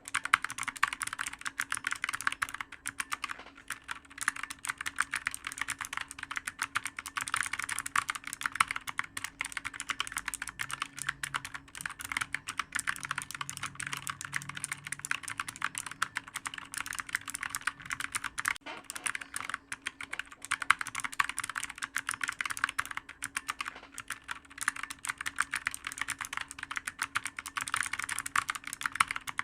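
Computer keyboard typed on fast and without pause, a dense run of clicky keystrokes that swells and eases a little, with a faint steady hum underneath.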